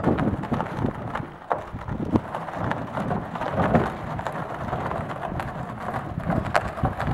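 A wooden frame on plastic-barrel rollers being pushed across a dirt and gravel lot by a horse. It makes a continuous rolling rumble, thick with small crunches and clicks of grit under the barrels.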